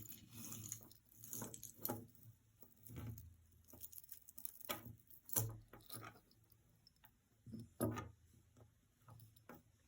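Costume jewelry being handled: scattered light clicks and small rattles of chains and metal pieces, with soft rustling between them.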